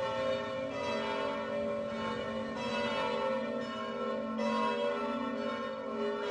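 Church bells ringing, a new stroke about once a second over the long, overlapping ring of the earlier ones.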